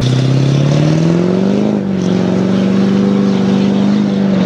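Chevrolet diesel pickup with an aftermarket exhaust accelerating hard from a standstill. The engine note climbs, dips at a gear change just under two seconds in, then holds nearly steady as the truck pulls away.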